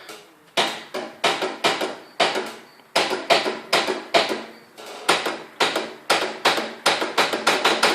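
Riding lawnmower's electric starter clattering in a rapid, even run of metallic knocks, about three to four a second, with the key held at start. The engine does not turn over; the owner suspects the spark plugs or a current problem.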